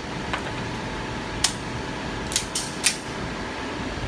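About five sharp, short cracks from pistols at an indoor range, irregularly spaced, three of them within about half a second near the three-quarter mark.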